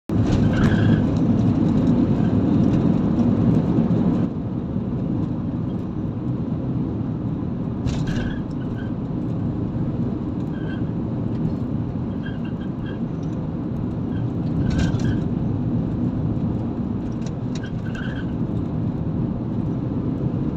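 Road noise of a moving car heard from inside the cabin: a steady low rumble of tyres and engine, which drops suddenly about four seconds in. A few short, faint high chirps come and go.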